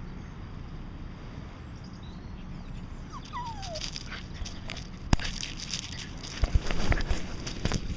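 A dog gives a short whine that falls in pitch, about three seconds in, over steady wind noise. From about five seconds a sharp click and loud crackling, knocking and rustling take over: a dog's fur pushing against the camera and jostling it, over pebbly ground.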